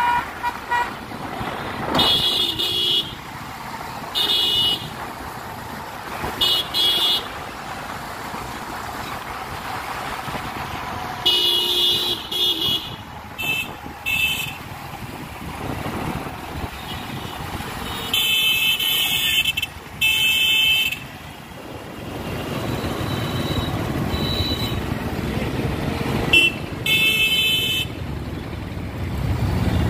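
Busy road traffic heard from a moving motorcycle: vehicle horns honking again and again, some short beeps and some held blasts over a second long, over steady engine and road noise.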